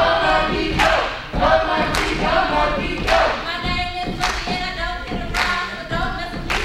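A group of young voices singing together on stage, with a sharp thump about once a second.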